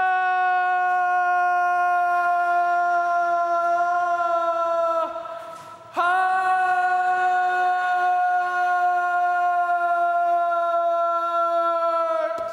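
A man singing a long, high held note, breaking off about five seconds in and taking it up again a second later for another long held note that ends just before the close; each note sags slightly in pitch as it dies away.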